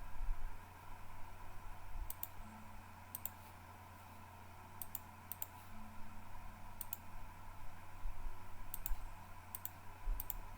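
Scattered sharp clicks of a computer mouse and keyboard, about eight in all, each a quick double click, over a steady low hum.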